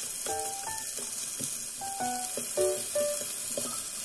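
Diced chicken and ginger sizzling in a small rectangular pan as chopsticks stir it, with light background music playing over it.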